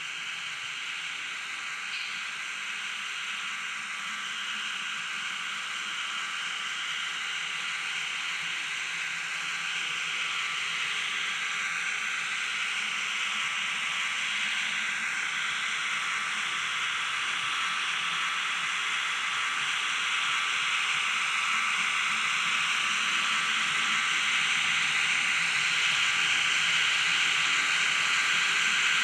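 Märklin H0 model diesel locomotive running: a steady noise with no clear pitch that grows gradually louder.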